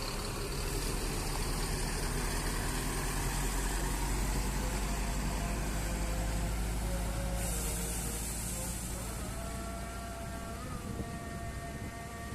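Tour bus diesel engine rumbling as the bus rolls slowly past, loudest about four seconds in, then fading. Near the end a faint, steady tone of several pitches comes in.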